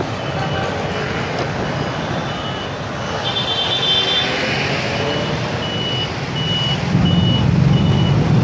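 Motorbike street traffic: many small engines running close by, with a short high electronic beep repeating about every half second. The low engine rumble grows louder about seven seconds in, as the bikes bunch up and stop at the red light.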